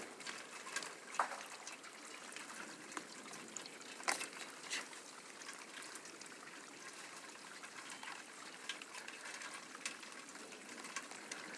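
Faint, steady hiss of rain and running water trickling during a thunderstorm just after hail, with a few sharp drips or taps about a second in and again about four seconds in.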